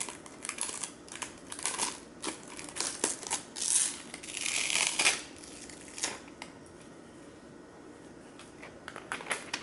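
Handling a new smartphone still in its plastic wrap: a run of small clicks, taps and crinkles of plastic film, with a longer rustle about four seconds in. It quietens in the last few seconds before more small clicks near the end.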